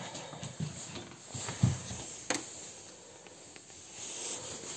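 Footsteps on a laminate floor, several soft thuds about half a second apart, with a sharp click a little after two seconds, over a faint hiss.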